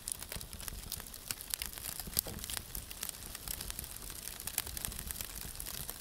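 Wood fire crackling: a dense, irregular run of sharp pops and snaps over a faint low rumble.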